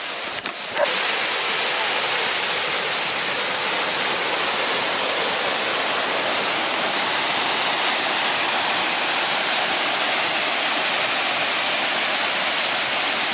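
Waterfall: a loud, steady rush of falling water that comes in suddenly about a second in.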